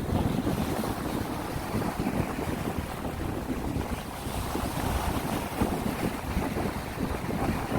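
Sea wind buffeting the microphone with a low, gusting rumble over waves washing onto the shore; a wash of surf swells briefly about halfway through.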